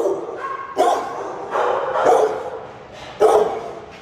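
Dogs barking in shelter kennels: several loud barks about a second apart, each trailing off.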